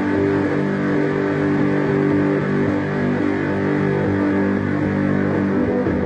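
Electric guitar played through an effects pedalboard: long held, ringing chords with a thick, sustained wash of effects.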